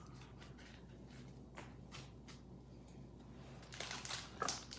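Pokémon trading cards being handled: faint light clicks and rustles of cards, with louder rustling near the end.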